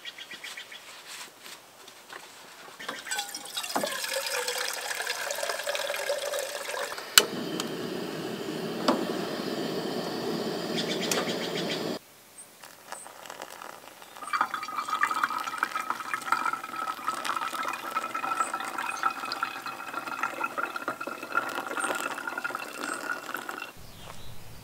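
Water being poured into a pot for coffee, the pitch rising as the vessel fills, with a sharp click about seven seconds in. After a short break, a second long pour follows, its ringing tone climbing slowly.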